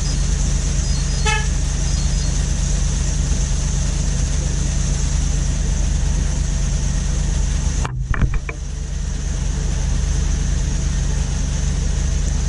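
Car engine idling steadily after a remote start. A short beep sounds about a second in, and a few sharp clicks come about two-thirds of the way through.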